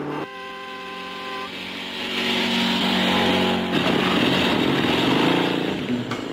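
Police motorcycle engines running and pulling away, getting louder about two seconds in. A steady pitched tone sounds over the first second and a half.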